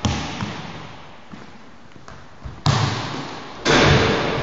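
A basketball bouncing on a wooden gym floor, each bounce echoing in the large hall, then a louder, longer impact near the end as the shot hits the backboard and rim.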